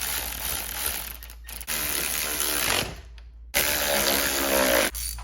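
Handheld power tool running in three bursts, a motor whine in each, as it drives in the 6 mm bolts holding the handguard mounts on a motorcycle's triple clamp.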